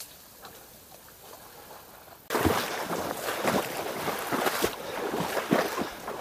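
Near quiet with faint ticks, then about two seconds in, loud irregular splashing and rustling: someone moving through shallow water and vegetation, with a heavier slosh every second or so.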